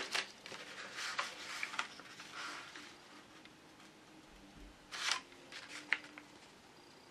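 A letter-size sheet of paper being folded by hand and its crease pressed down, rustling and rubbing, busiest in the first couple of seconds. Two short, sharp crackles of the paper come about five and six seconds in.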